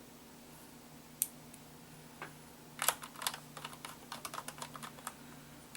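Light clicks and ticks from handling small screws and a precision screwdriver while refitting screws into the laptop's plastic case: a few single clicks, then a quick run of them from about three seconds in.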